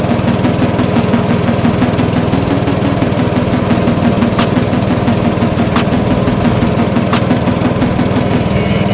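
Small boat's inboard engine running steadily with an even knocking beat, heard from on board. Three short sharp ticks come about a second and a half apart in the middle.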